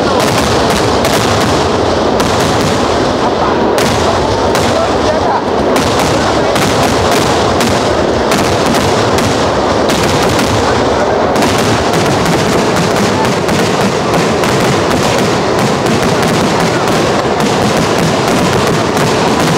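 A festival fireworks display at full barrage: firework bangs follow so closely that they run together into one continuous, loud crackling din.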